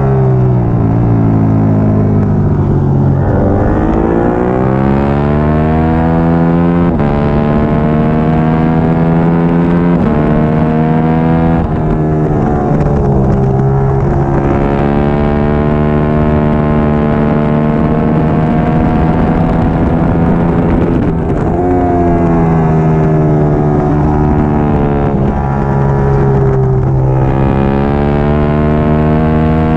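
Triumph Daytona 675R inline three-cylinder race engine at racing speed, revving up through the gears in steps, then dropping sharply on braking and downshifts about three, twelve, twenty-one and twenty-seven seconds in, before pulling hard again.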